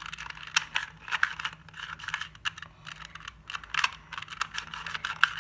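Plastic puzzle cube being turned and handled in the hands: quick, irregular plastic clicks and clacks.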